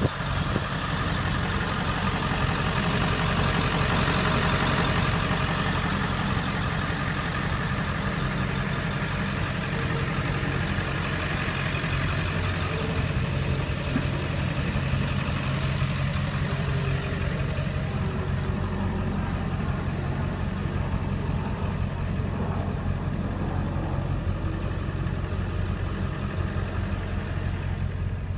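Ford 7.3-litre Powerstroke V8 turbo diesel idling steadily.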